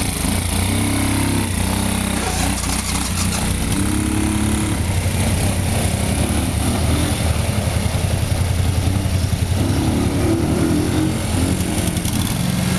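Small utility ATV's engine running, revving up several times as the quad pulls away, rides off and turns back.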